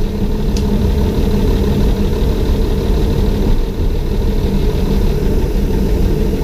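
Railbus under way on the line: a steady drone from its diesel engine and running gear, with a single brief click about half a second in.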